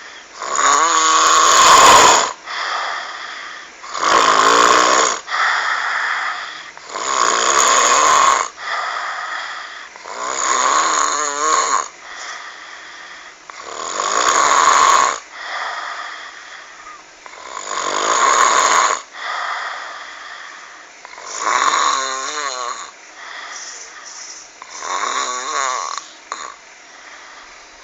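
A person snoring in a steady rhythm: eight snores, each a little over a second long, come about every three and a half seconds. The snore has a frog-like sound.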